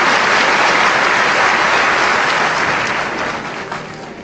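Large audience applauding steadily, the applause dying away over the last second or so.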